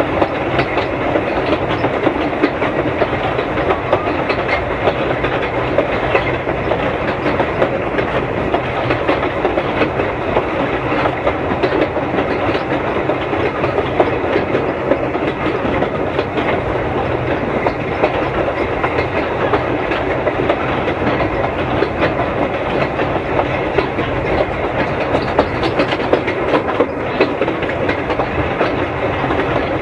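Hunslet narrow-gauge steam locomotive running along the line, heard from its own footplate: a steady clatter of wheels on the rails mixed with the working of the engine.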